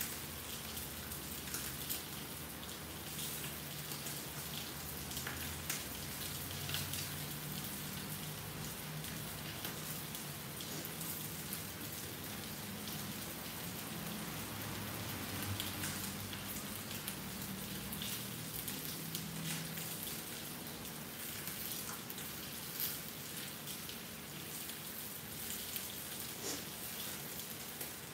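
Salmon steak frying in oil in a cast iron skillet: a steady sizzle with many small pops and crackles of spattering fat.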